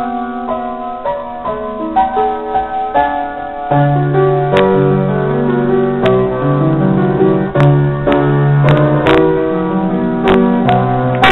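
Slow piano music with no singing: sparse melody notes at first, then fuller with low bass chords from about four seconds in.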